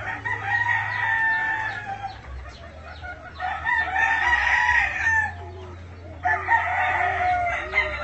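Chickens calling: three long, drawn-out calls, with short low clucks in between near the end.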